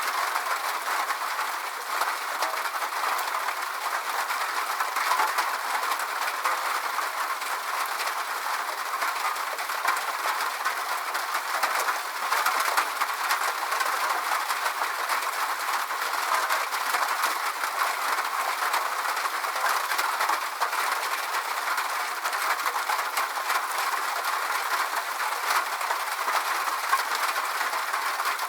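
Steady rain falling: an even hiss of many drops with fine, scattered patter ticks and no deep rumble.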